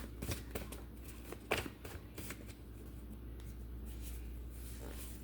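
A deck of cards being shuffled and handled, with scattered soft card clicks and one sharper snap about a second and a half in, over a low steady hum.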